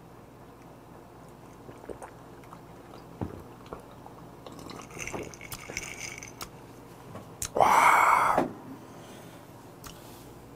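A man drinking from a glass, with faint swallowing and small mouth and glass clicks. About seven and a half seconds in comes one loud, breathy exhale of about a second, the gasp after a swig of a strong 40% vodka highball.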